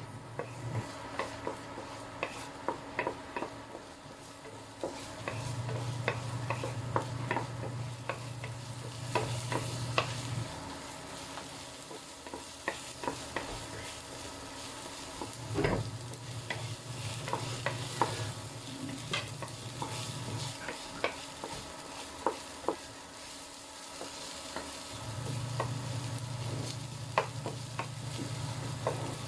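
Rice stir-frying in a pan: a steady sizzle with a spatula scraping and tapping against the pan many times. A low hum comes and goes three times.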